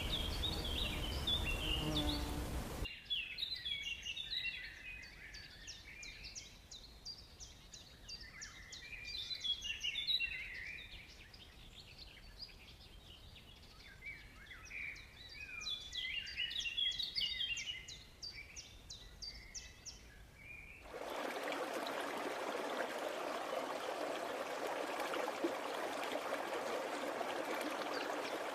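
A bird singing in three bouts of quick, rapid chirps, then, after a sudden cut about three-quarters of the way in, a steady rush of running water like a stream.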